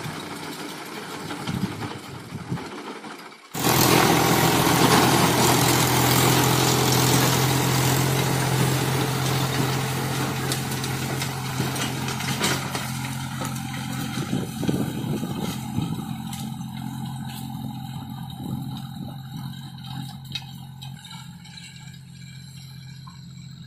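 Diesel tractor engine running steadily under load while it pulls a rotavator through dry soil, with a low engine hum under the noise of the tilling. About three and a half seconds in it suddenly gets much louder, then it slowly fades as the tractor draws away.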